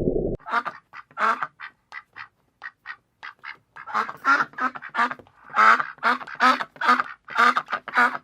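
An animal calling in a rapid series of short calls, faint and clipped at first, then louder and more frequent from about four seconds in.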